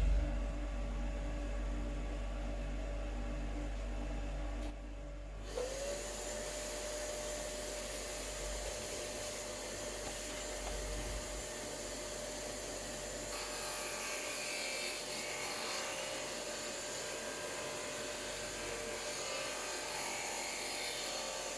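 Homemade spindle sander driven by a washing-machine motor, running with a steady whine and rough sanding noise. About five seconds in the sound changes from a low steady hum to the whine.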